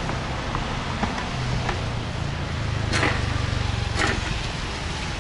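Street traffic: a vehicle's low engine hum swells for a couple of seconds in the middle over steady street noise, with a few sharp clicks.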